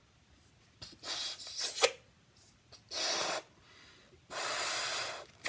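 A 350 latex twisting balloon being inflated by mouth: three loud breaths, about a second in, around three seconds, and a longer one near the end.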